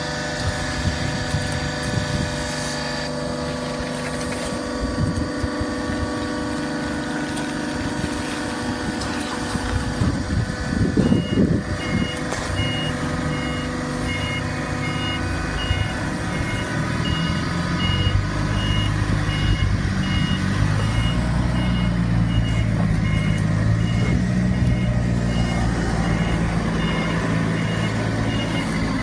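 A vehicle's reversing alarm beeping steadily over running machinery. The beeping starts about a third of the way in, just after a few loud knocks, and a deeper engine drone grows louder in the second half.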